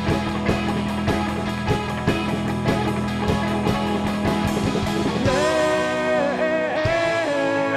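Indie pop-rock band playing: guitars, a held bass note and a steady drum beat. About five seconds in, a long sustained melodic line comes in over the top.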